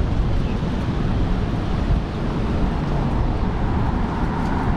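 Wind buffeting the microphone: a steady, loud low rumble of noise that flutters continuously, with no engine tone in it.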